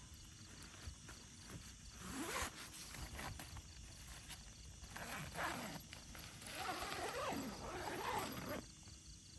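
A horse making low, wavering vocal calls: a short one about two seconds in, then longer ones from about five seconds to eight and a half.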